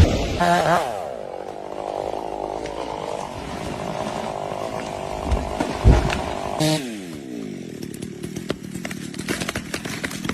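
Chainsaw engine dropping off throttle to a steady run, then revving and falling back again about two-thirds of the way through, with two heavy thuds shortly before. A run of sharp cracks and clicks fills the last few seconds.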